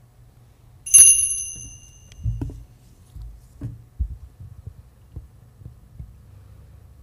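A single sharp metallic clink that rings on in clear high tones for about a second and a half. It is followed by several soft low knocks and handling sounds as a metal chalice is lifted, drunk from and set down on the altar.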